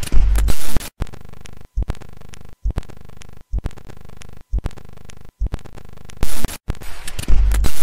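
Electronic logo-intro sound effects: a deep bass boom, then a droning tone broken into glitchy pieces by sudden dropouts about once a second, each piece starting with a low thump, and two more loud booms near the end.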